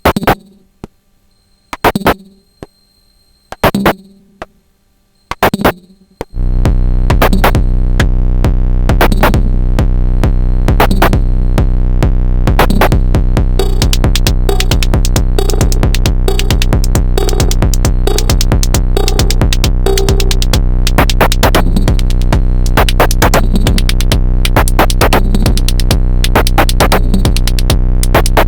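Sonic Potions LXR-02 digital drum machine playing techno: for the first six seconds, single hits about every two seconds with silence between, then the full groove comes in, with rapid percussion over a sustained low drone.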